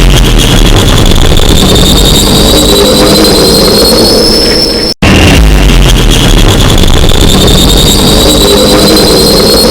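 The 'scientist toilet' horn sound effect played on a loop, very loud and distorted: a blaring low horn with a high whine rising slowly in pitch. It cuts out for an instant about five seconds in and starts over.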